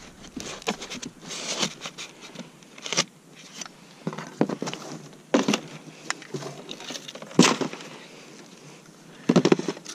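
Handling noise from unpacking: scattered rustles, scrapes and knocks as a battery charger and a magazine are lifted out of a foam-lined case and past a cardboard box, with the sharpest knock a little past seven seconds in and a quick cluster of knocks near the end.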